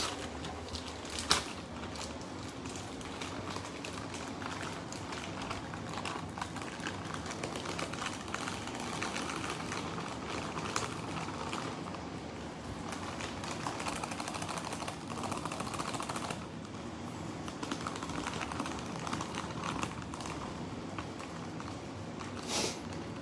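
Sticky pineapple-chicken sauce simmering in a pan: a steady crackle of many small pops as the sauce reduces and thickens. A sharp clink comes about a second in and a knock near the end.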